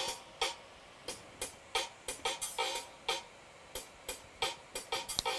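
Background music: a sparse drum-machine beat of short, crisp hits, two to four a second.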